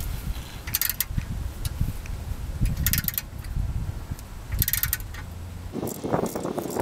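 Ratcheting wrench backing out a freshly broken-loose exhaust manifold stud: a short burst of ratchet clicks on each back-swing, about every two seconds, with low knocks and scraping of the tool and stud between.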